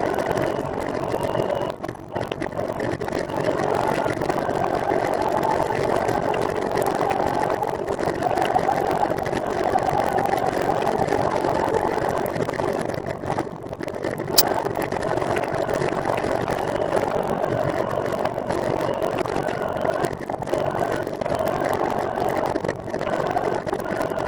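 Steady rolling noise from a recumbent trike riding along the road, with one sharp click about fourteen seconds in.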